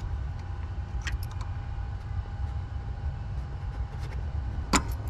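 Sharp plastic click near the end as the air hose's push-to-connect fitting is worked off the air suspension strut's valve, with a few faint clicks about a second in. A steady low rumble runs underneath.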